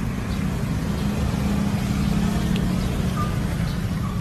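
Motorbike and scooter engines running in the street, a dense low drone with a steadier engine hum in the middle.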